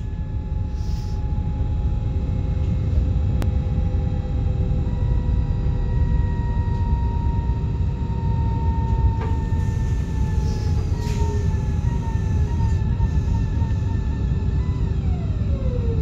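Class 72 electric multiple unit's traction motors and inverters whining over the steady running rumble of the train. Several thin tones hold, then step down in quick stair-like jumps, and one falls sharply a little before the end.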